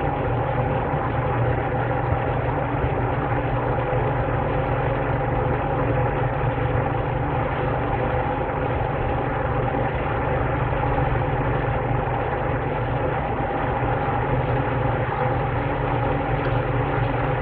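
Steady machine hum with several constant tones and no change in pitch or level, like a motor running continuously.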